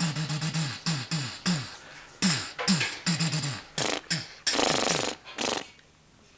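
Gunfire made with the mouth: a quick run of short vocal shot noises, each dropping in pitch, imitating pistol shots in a mock gunfight. They stop a little before the end.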